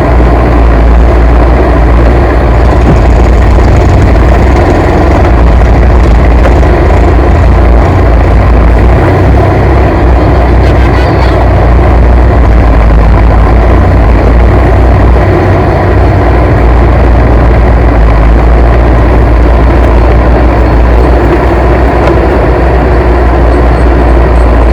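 A heavy vehicle's diesel engine running steadily and loud, with a deep, unbroken rumble.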